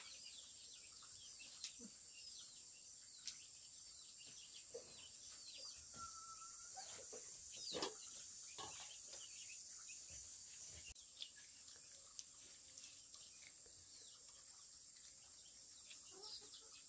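Faint outdoor ambience: small birds chirping here and there over a steady high-pitched drone, with a few soft knocks, the clearest about eight seconds in.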